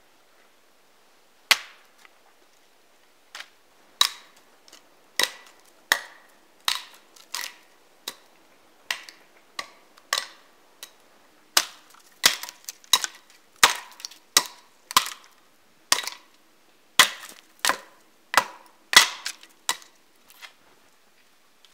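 Dry dead branches being broken off a conifer trunk one after another: a run of sharp woody cracks, each with a short ringing tail, about one a second at first and coming faster and closer together in the second half.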